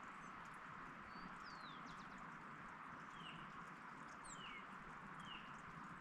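Wild birds giving short, downward-sliding chirps about five times, faint over a steady background hiss, with a few faint ticks.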